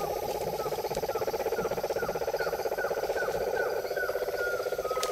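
Amazon rainforest animal chorus: a fast, steady trill, with a short chirping call repeated two to three times a second over it.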